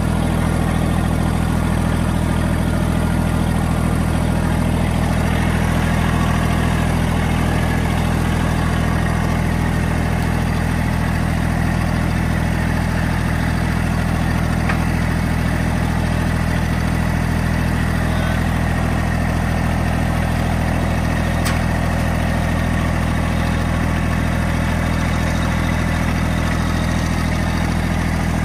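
Massey Ferguson GC1723E compact tractor's three-cylinder diesel engine running steadily at a constant speed, heard from the driver's seat while the front loader is working. Two faint clicks come about halfway through and about three quarters of the way through.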